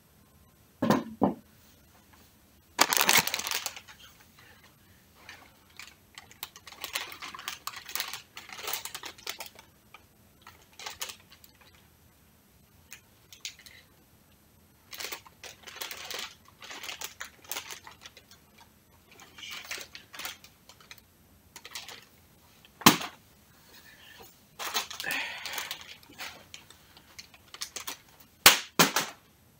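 Crinkling and rustling of a plastic snack bag of popcorn being handled and tossed, broken by a few sharp smacks as a sword is swung at it. The loudest smacks come about three seconds in, past the twenty-second mark, and twice near the end.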